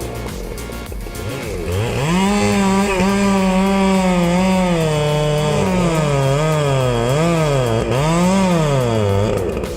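Chainsaw running at high speed while cutting, its engine pitch dipping and rising again and again as it takes the load. It is quieter for the first couple of seconds, then loud until just before the end.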